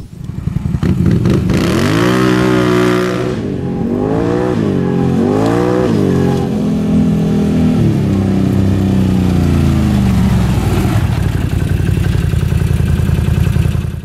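Can-Am Outlander 800 XMR ATV's Rotax V-twin engine running through a Speedwerx slip-on exhaust, revved up and back down several times as it is ridden, then holding a steady pitch that slowly eases off. It cuts off suddenly at the end.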